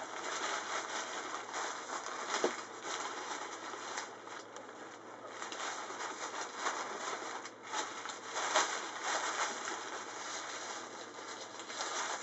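Rolled-up delta kite sail rustling and crinkling as it is handled and fastened by hand, with a sharp tick about two and a half seconds in.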